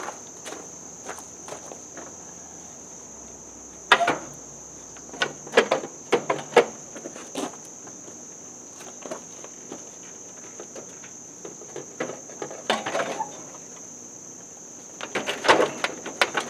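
Scattered knocks and plastic clatter as a tractor's plastic housing is handled and worked into place, the loudest about four seconds in and a cluster near the end. Under them, a steady high chirring of insects.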